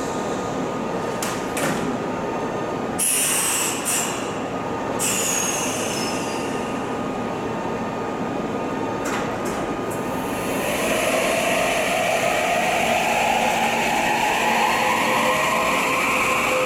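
Kintetsu 22600-series 'Ace' electric limited express pulling away: a steady hum while it stands, a short hiss about three seconds in, then from about ten seconds in its VVVF inverter and traction motors whining upward in pitch as it accelerates.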